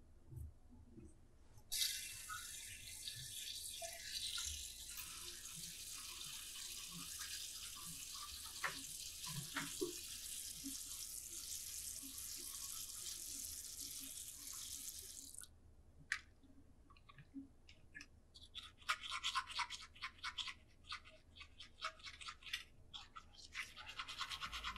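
A bathroom tap runs in a steady hiss for about fourteen seconds, starting and stopping abruptly. Then a manual toothbrush scrubs teeth in quick, uneven back-and-forth strokes.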